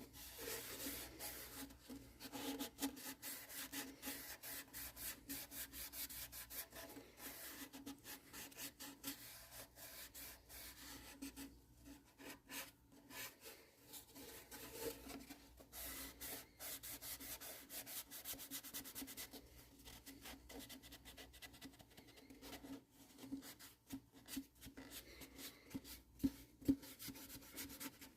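A cloth rubbing quickly back and forth over a ukulele's wooden body, applying a shellac-based friction polish ('shine juice'). The scrubbing is continuous, with a couple of brief pauses midway.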